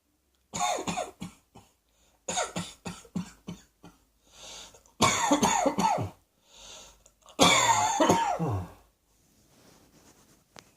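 A person coughing in four fits of several rapid coughs each, with softer breaths between them. The last fit is the longest, its voice sliding down in pitch.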